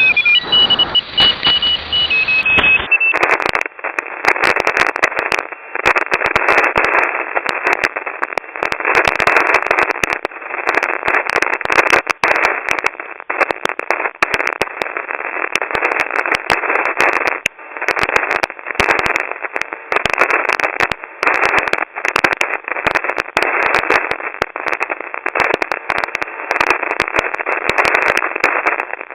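Shortwave radio static heard through a WebSDR receiver: a steady hiss in a narrow voice-width passband, full of sharp crackles of atmospheric noise. In the first few seconds there are brief whistling and dashed tones before the sound narrows to the static.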